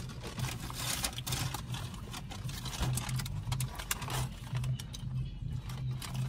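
Paper fast-food bag rustling and crinkling as it is handled and opened, over the steady low hum of an idling car engine.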